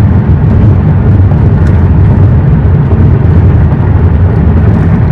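A car in motion: the steady, loud rumble of road and wind noise, heaviest in the low end.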